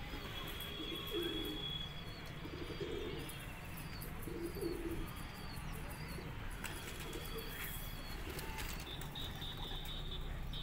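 Mohammadabadi pigeons cooing, with low coos repeating every second or two in the first half, mixed with thin high chirps.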